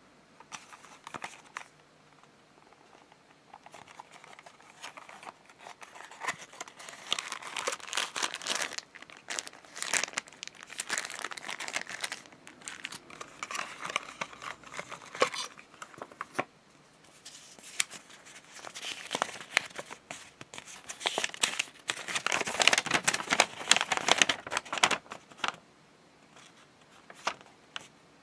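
A small cardboard box and its clear plastic tray being opened by hand, crinkling and rustling in irregular bursts, loudest a few seconds before the end.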